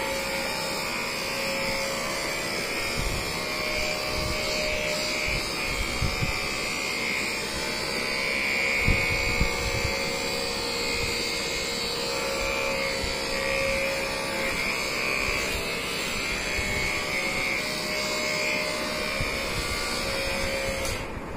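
Corded handheld electric vibration massager buzzing steadily while pressed against a patient's back. Its motor whine swells and eases a little, with a few soft knocks from handling, the clearest about nine seconds in.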